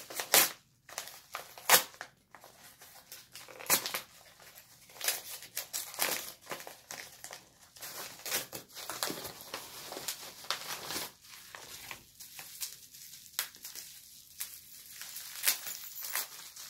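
A package being opened by hand: packaging crinkling, crumpling and tearing, with many irregular clicks and rustles.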